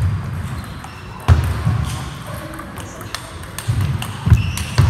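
Table tennis rally: the celluloid-type ball clicks sharply off the paddles and table over and over, with low thuds of the players' shoes stamping on the wooden floor as they move.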